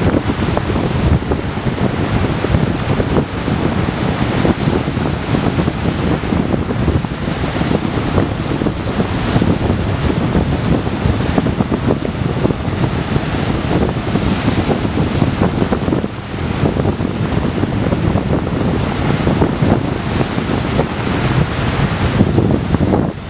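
Rough sea surf breaking and washing against a jetty of large stone blocks: a continuous churning rush of water. Wind rumbles on the microphone.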